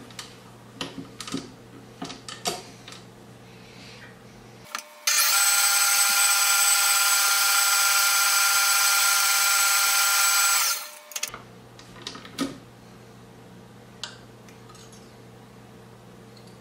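KitchenAid Professional bowl-lift stand mixer running with its wire whisk, whipping eggs and sugar. Its motor gives a loud, steady, high whine that starts abruptly about five seconds in and stops about six seconds later. Before and after come light clicks and clinks as the whisk is fitted and taken off.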